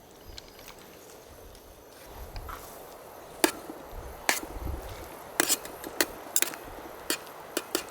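A series of sharp, irregular clicks and taps, about ten of them, starting a few seconds in, over a low rumble.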